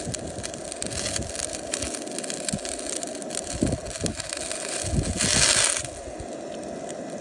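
Offal and meat sizzling and crackling on a wire grill over an Iwatani compact gas burner, with a steady rush of the burner's flame underneath. A brief rush of wind noise comes about five seconds in.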